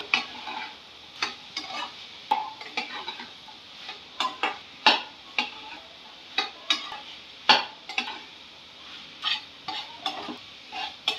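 Chopped French beans being stirred and sautéed in masala in a kadhai: irregular scrapes and taps of the spatula against the pan over a faint, steady sizzle.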